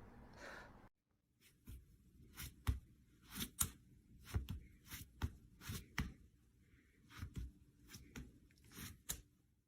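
A series of short, quiet crackling noises, about fifteen of them at irregular spacing over several seconds.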